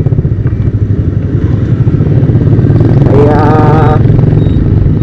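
Motorcycle engine running with a loud, steady low rumble close on the microphone.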